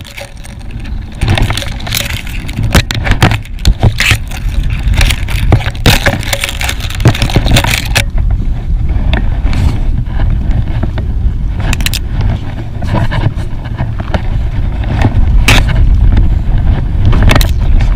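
Repeated scrapes and knocks of hands handling fishing line close to the microphone, thickest in the first eight seconds and again near the end, over a steady low rumble.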